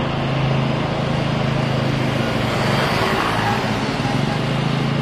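Steady engine noise with a low, even hum, and a brief swell of hiss about three seconds in.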